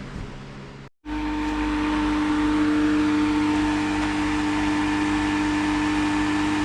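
A machine running steadily: a low, even hum over a whirring rush. It starts abruptly about a second in, after a brief dropout.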